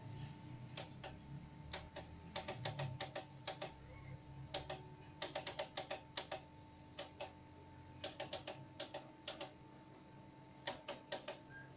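Rapid clicks of buttons being pressed in quick runs, keying song numbers into a karaoke player, over a faint steady hum.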